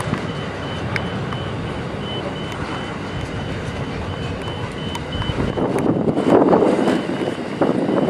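Level crossing warning bell beeping at a steady high pitch about twice a second over the rumble of grain hopper wagons rolling away. About two-thirds of the way through the beeping stops and louder, uneven rushing and clattering of hopper wagons passing close by takes over.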